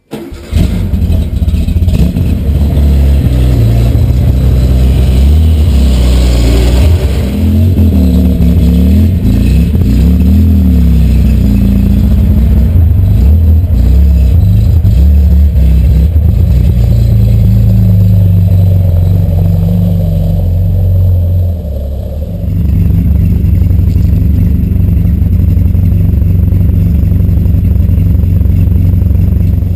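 Porsche 911's air-cooled 3.0-litre SC flat-six, breathing through SSI heat exchangers and a Dansk muffler, starting up suddenly and running loud. Several throttle blips rise and fall in pitch about six to twelve seconds in, then it settles to a steady run as the car rolls out of the garage onto gravel.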